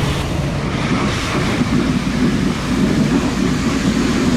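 Loud, steady machinery running, with a low hum under a rushing hiss.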